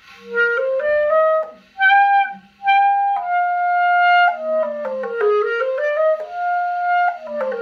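Yamaha YCL-631 Eb alto clarinet played in the altissimo register: quick runs up and down and several held high notes, broken by two brief gaps in the first half. The high notes hesitate and don't speak clearly, which the player puts down to the instrument's undersized altissimo vent.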